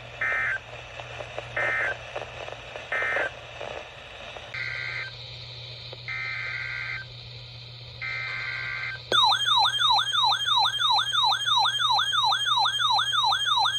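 Weather radio data bursts: three short buzzy SAME end-of-message bursts close the last warning, then three longer SAME header bursts begin the next one. About nine seconds in, a loud siren-like alert tone starts, warbling up and down about three times a second.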